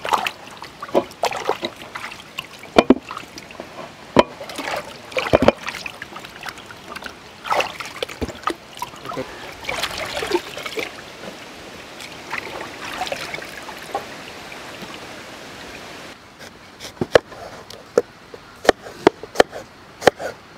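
Water sloshing and splashing as hands wash fruit in a large metal pot of water. About three quarters of the way through, this gives way to a string of sharp chops of a knife slicing an apple on a wooden cutting board.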